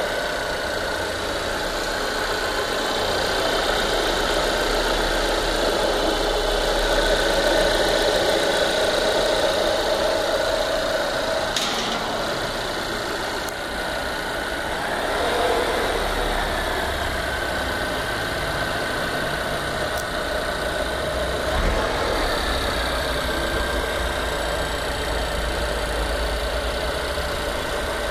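Volvo Drive-E 2.0-litre turbocharged inline four-cylinder idling just after start-up, heard close up over the open engine bay. It runs steadily, with a small shift in its note around the middle.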